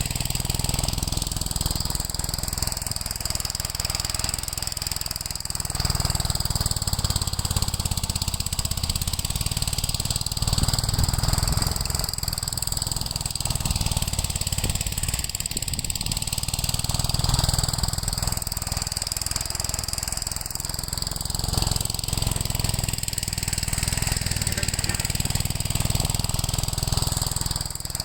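Gravely L8 walk-behind tractor's single-cylinder engine running steadily while it works through snow, its sound swelling and easing slightly every few seconds.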